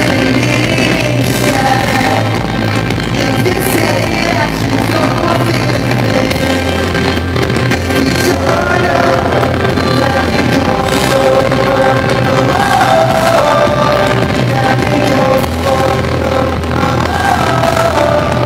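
Pop-rock band playing live, with a male lead singer over drums and guitars.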